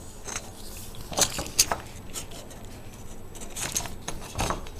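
Small metal parts and their packaging being handled on a table: a few scattered light clicks and clinks.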